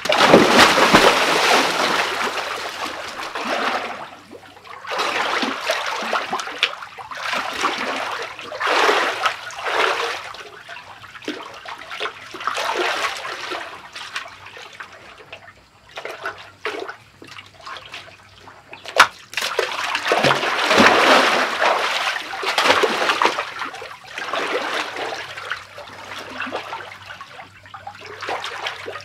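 Water splashing in a small cement-lined pool as a person shoots out of a slide tunnel into it and moves about in the water. The splashing comes in several surges, the biggest right at the start and another about twenty seconds in, with quieter sloshing and dripping between.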